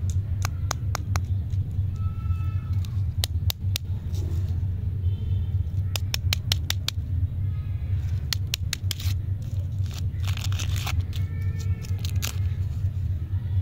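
Paper candy wrappers being peeled and torn off lollipops by hand, crackling in quick bursts of sharp clicks, over a steady low rumble.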